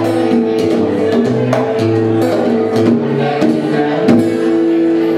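Live guitar and bongos playing together, with strummed chords over hand-drum hits; about four seconds in the drumming drops away and a guitar chord is left ringing.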